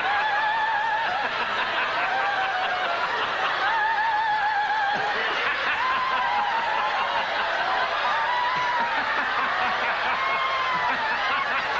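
A congregation laughing uncontrollably together, with high, wavering laughs drawn out for a second or two at a time over the general laughter. The laughter is taken as a manifestation of an anointing.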